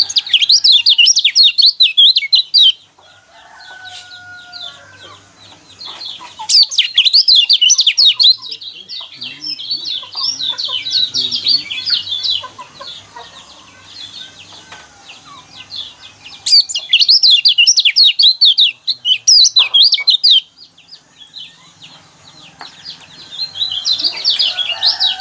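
Yellow kecial (pleci white-eye) singing its fast competition-style 'gronsengan' song: loud bursts of rapid, high, chattering trills a few seconds long, with quieter gaps holding fainter, lower calls. It is the kind of song played to provoke other kecial into singing.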